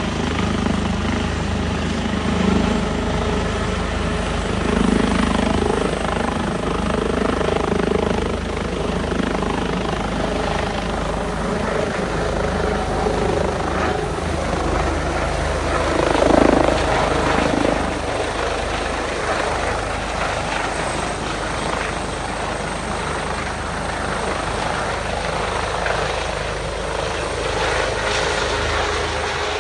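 A helicopter lifting off and departing: the steady drone of its turbine engines and rotor blades, swelling to its loudest about halfway through as it climbs away, then easing slightly.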